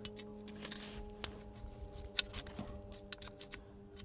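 Scattered light clicks and ticks, roughly one a second, over a steady low hum.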